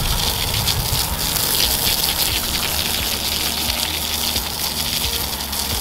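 Water spraying steadily from a garden hose onto freshly backfilled dirt and grass, soaking the fill down to settle it, a continuous rushing hiss.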